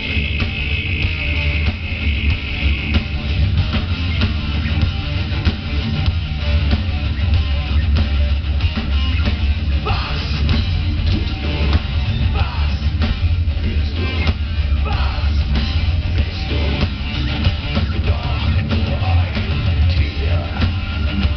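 Live heavy metal band playing at full volume: a pounding drum kit, distorted electric guitars and a male singer, with a heavy, booming bass.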